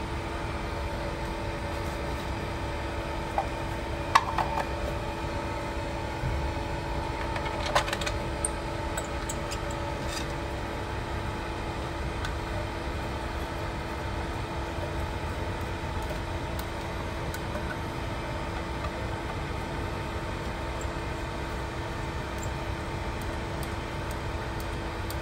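Electric centrifugal water pump's motor running steadily on a new running capacitor, a steady hum that shows the motor now turns and pumps instead of only humming with a blown capacitor. A few sharp clicks in the first ten seconds as the terminal box cover is fitted.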